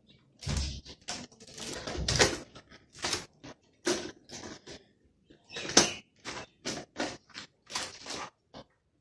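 Plastic Lego bricks and pieces being handled and pressed onto a baseplate: an irregular run of small clicks and rattles, with a couple of dull knocks in the first two seconds and one sharper click about six seconds in.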